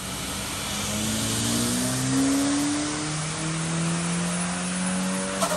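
Turbocharged Toyota 2RZ 2.4 L four-cylinder in a 1988 Toyota pickup making a pull on a chassis dyno: engine pitch rises, drops as the automatic transmission upshifts about two seconds in, then climbs again more slowly, over a loud rush from the tyres and rollers. A sharp click near the end.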